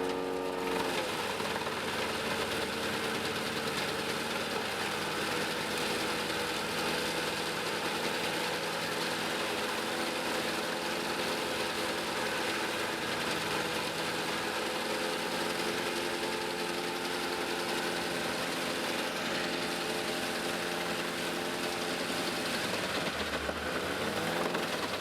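Tractor-driven wood chipper running steadily: a continuous engine and machine drone with a haze of chipping noise. The engine note bends down and back up near the start and again near the end, as under changing load.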